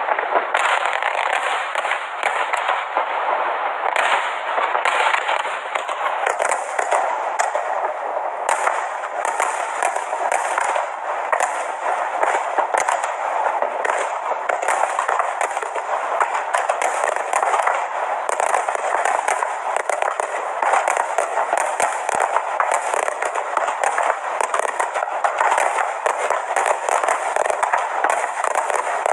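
Fireworks display going off nonstop, a dense run of rapid bangs and crackling with no pause.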